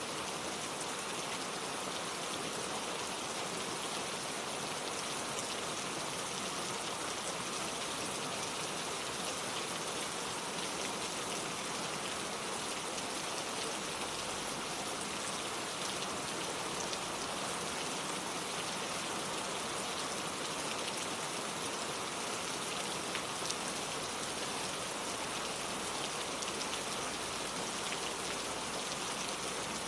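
Steady rainfall, a constant hiss of rain with scattered individual drops ticking on a surface.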